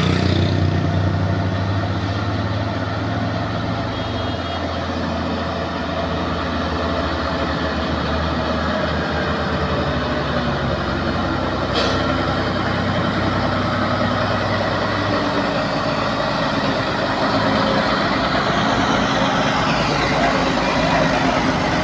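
Diesel engine of a heavily loaded multi-axle cargo truck pulling uphill under load, a steady low engine drone that grows slightly louder as the truck draws close and passes.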